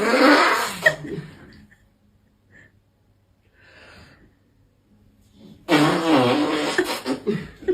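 A dog making rough, throaty noises in two bursts, one fading about a second and a half in and another starting near six seconds.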